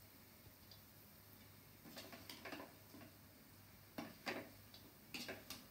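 Faint scrapes and taps of a steel spatula stirring sabudana khichdi in a steel kadai, in three short clusters about two, four and five seconds in.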